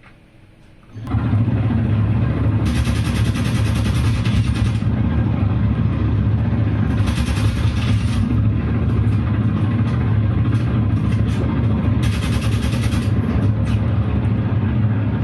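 Video game audio of a vehicle engine running steadily at a high level, coming in suddenly about a second in, with three bursts of hiss over it.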